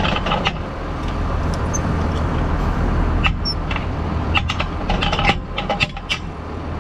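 Farm tractor engine idling steadily, with several short metallic clinks in the second half as a hitch pin is handled at the drawbar.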